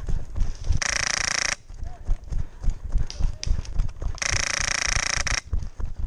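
Airsoft electric gun firing on full auto: two bursts of about a second each, one about a second in and one around four seconds in, with rapid clicking blurring into a buzz, and a third burst starting at the end. Irregular low thumps run underneath.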